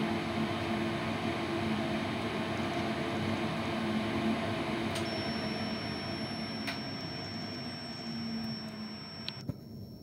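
Danube DD16 electronic tumble dryer running, its drum turning a load of laundry, with a steady hum that fades over the last few seconds and cuts off near the end as the drying cycle finishes. A few light clicks, and a thin high steady tone that starts about halfway through.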